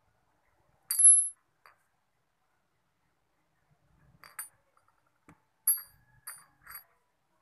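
Loose steel motorcycle transmission parts, a gear and a small bushing ring, clinking against each other and the table with sharp, ringing metal clinks. There is a loud clink about a second in, then a quick run of five or so more about four to seven seconds in, one near the end of that run as loud as the first.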